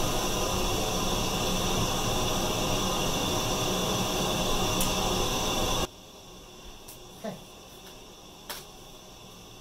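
Steady fan noise with a faint hum that cuts off abruptly about six seconds in, leaving a quiet room with a few faint clicks.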